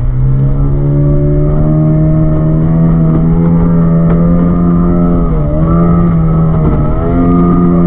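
Yamaha Enduro 40 hp two-stroke outboard motor running at high throttle, driving a small boat at speed. Its pitch climbs in the first second, then dips briefly twice in the second half before recovering.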